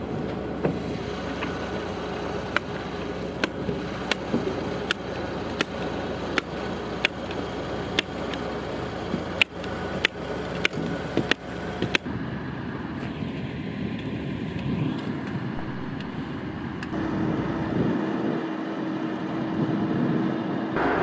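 A hand staple gun snaps sharply about eighteen times, roughly one shot every two-thirds of a second, fixing a felt insulation strip to an OSB floor panel. A truck engine runs steadily underneath. About two-thirds of the way through the stapling stops and the truck engine goes on alone, with a steady hum joining in near the end.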